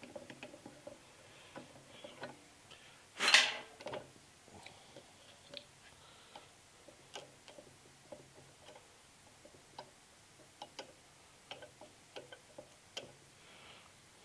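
Threading die being turned by hand on a steel 7/16-14 threaded stud to clean up its threads: scattered light metal clicks and ticks, with one brief louder rasping noise about three seconds in.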